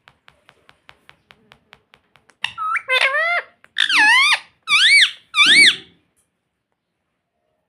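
Indian ringneck parrot giving four or five loud, shrill calls, each rising and falling in pitch. They come after a run of faint, quick clicks at about six a second.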